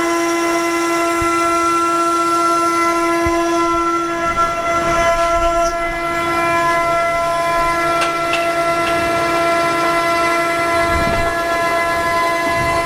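6040 CNC router spindle whining steadily as the bit carves into Huon pine. The sound of the cut rises and falls about 4 to 7 seconds in and again near the end, while the tool is fed in slowly at a reduced feed rate.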